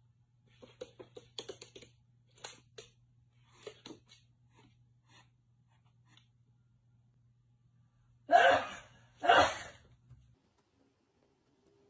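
Two loud, short, breathy sounds about a second apart, from an orange tabby cat, after a run of faint clicks and taps over a low steady hum.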